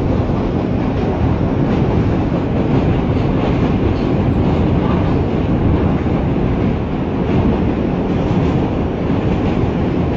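Subway train running, heard from inside the car: loud, steady noise of the wheels on the track and the car in motion.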